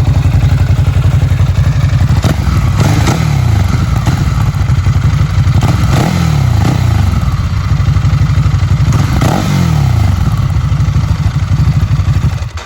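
Ducati Hypermotard L-twin on its stock exhaust idling warm, with three sharp throttle blips that rise and fall in pitch. The sound stops abruptly near the end.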